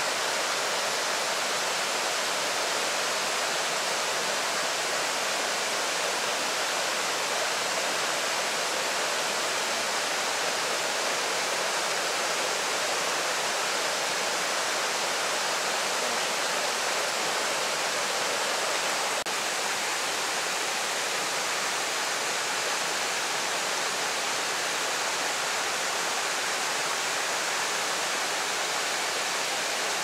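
Sable Falls, a waterfall cascading down rock ledges, making a steady rushing hiss with little low rumble.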